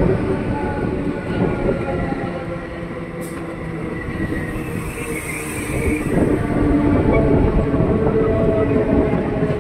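Eastern Railway EMU local train's coaches running past at close range: wheels rumbling on the rails under a steady hum of several tones, growing louder about six seconds in.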